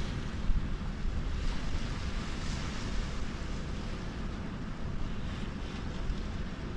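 Steady wind on the microphone with small waves washing onto a sandy beach.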